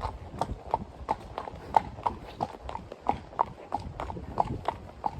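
Standardbred horse's hooves clip-clopping at a steady walk, about three even footfalls a second.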